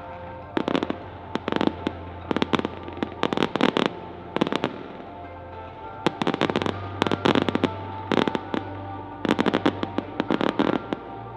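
Fireworks going off in rapid clusters of sharp bangs and crackles, starting about half a second in with a short lull midway, over background music.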